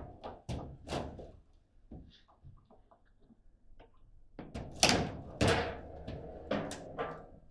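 Table football in play: sharp knocks of the hard ball against the players and table walls, and rods clacking. The loudest knocks come about five seconds in, as a shot goes into the goal.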